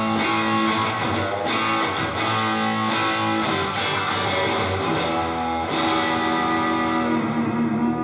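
Electric guitar with a Lace Sensor Emerald/Purple dual humbucker wired in parallel, played with overdrive through an amp: sustained chords and notes with several fresh attacks, the last chord ringing on. This is the brighter, Telecaster-like voicing of the humbucker.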